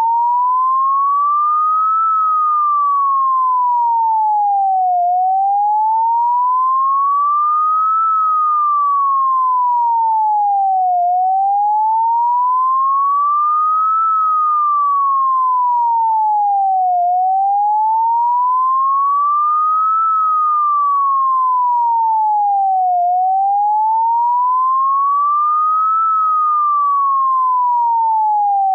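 Synthesized police-siren wail: a single pure, whistle-like tone sweeping slowly up for about three seconds and back down for three, over and over at an even pace.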